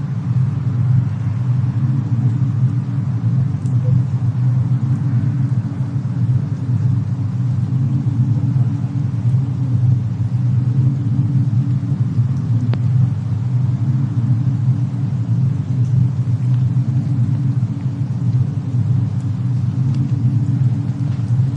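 Fireplace and snowstorm ambience: a steady low rumble, with a few faint fire crackles.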